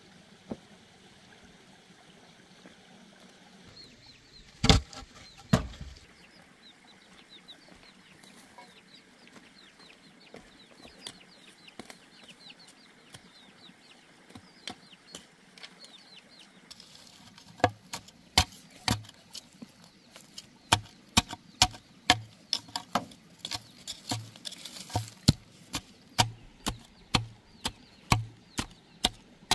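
Large knife chopping and shaving a bamboo pole: sharp woody strikes, one or two a second, from a little past halfway on. Before that, two loud wooden knocks about five seconds in, and faint high bird chirps.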